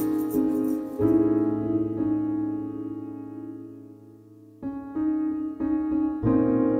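Background music of solo piano: a chord struck about a second in rings and slowly fades, then new notes come in quick succession near the end.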